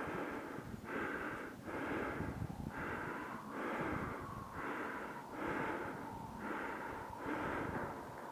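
A hiker breathing hard in a steady rhythm, about one loud breath a second, close to a body-worn microphone, as from the effort of walking through snow.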